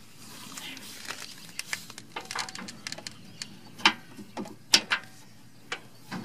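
Scattered light clicks and taps of a new brake hose's metal end fitting knocking against the front suspension as it is worked into place, with two sharper clicks about four and five seconds in.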